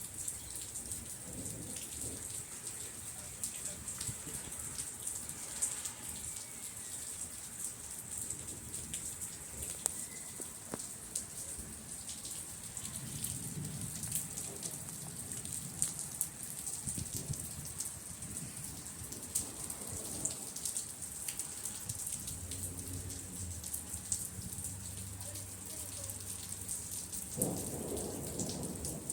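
Steady thunderstorm rain, with the ticks of individual drops hitting a surface. Low rumbles of thunder come in about halfway through and again over the last several seconds.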